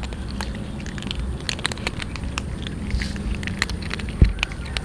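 Cats crunching dry kibble: a dense, irregular crackle of small bites and chews, with a dull thump about four seconds in.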